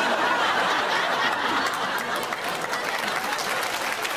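Studio audience laughing and clapping, a dense patter of many hands and voices.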